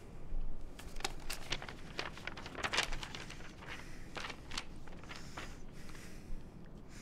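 Sheets of paper handled and flipped through by hand: a run of short, irregular rustles and crackles.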